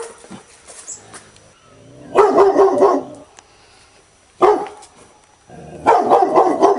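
Angry dog barking aggressively in bursts: a quick run of barks about two seconds in, a single bark, then another run of barks near the end.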